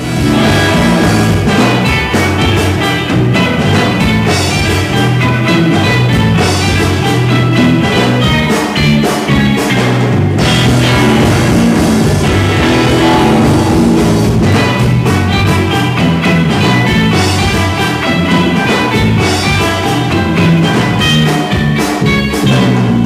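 Rock music with guitar, bass and drum kit playing, without singing.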